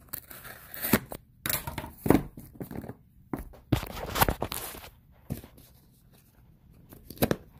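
Hands working the cardboard box of a Samsung Galaxy Note 10 5G and its factory seals: irregular rustling, scraping and tearing with sharp clicks for the first four seconds or so, then a couple of light knocks near the end.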